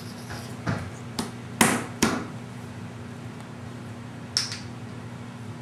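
A baby slapping her hands on a wooden table top: a handful of sharp smacks, the loudest about a second and a half in, and a last one a little past four seconds.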